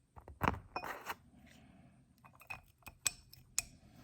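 Small steel parts of a ratchet socket wrench's mechanism clinking and clicking as they are handled and fitted back into the housing: a handful of separate light metallic taps.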